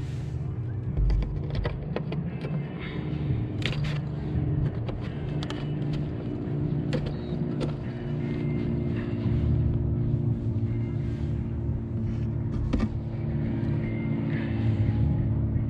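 Fishing rods and spinning reels being handled: scattered sharp clicks and knocks over a steady low rumble with a faint hum.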